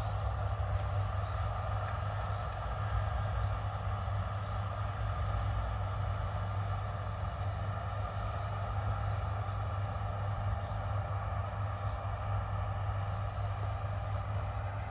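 Diesel engine of harvest machinery running steadily at a constant speed, a low even hum.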